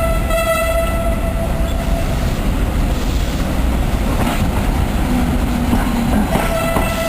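Brissoneau et Lotz diesel locomotive hauling a work train of loaded ballast hoppers, with a steady low rumble of engine and wagons throughout. A horn blast fades out about two seconds in, and a second horn blast sounds near the end.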